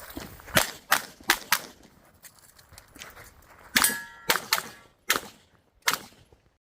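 A string of about nine pistol shots from a 1911-style handgun, fired in quick pairs and singles. A clear metallic ringing follows the shot about four seconds in, as a steel target is struck.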